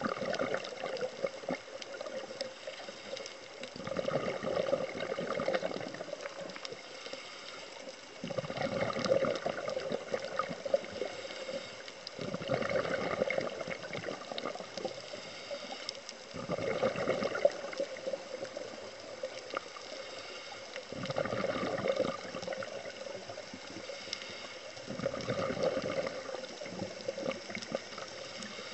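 A scuba diver's exhaled bubbles rushing and gurgling from the regulator about every four seconds, each exhale lasting about two seconds. Underneath is a faint steady crackle of scattered small clicks, typical of snapping shrimp on a reef.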